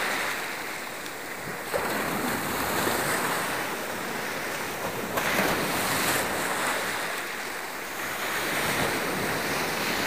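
Small waves breaking and washing up the sand around the feet at the water's edge. The surf swells and eases every three or four seconds.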